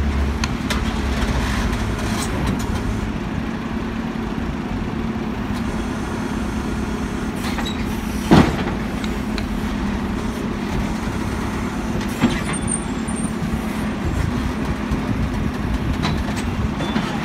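Heavy diesel engines of a JCB backhoe loader and a dump truck running steadily at a roadworks, a continuous low hum. A single loud sharp bang about eight seconds in, and a smaller knock a few seconds later.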